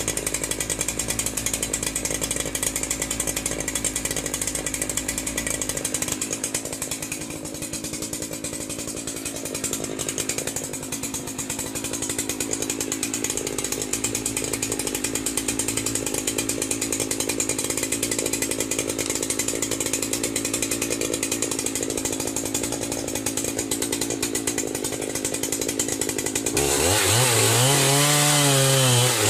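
Chainsaw engine running steadily, then revved near the end, its pitch rising and falling and louder as the saw goes into the log.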